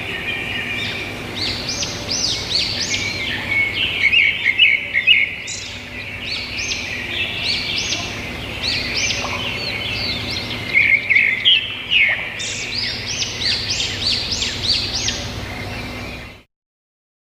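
Small songbirds chirping and twittering in rapid runs of short, high, rising notes, phrase after phrase, the sound cutting off abruptly near the end.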